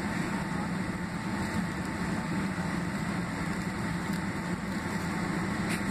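Cabin noise inside a Boeing 767-300ER on the ground with its General Electric CF6-80C2B6 engines at idle thrust: a steady rumble and hiss with a low hum underneath.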